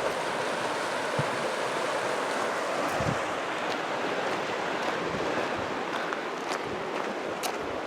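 Gunnison River flowing through its canyon: a steady, even rush of water.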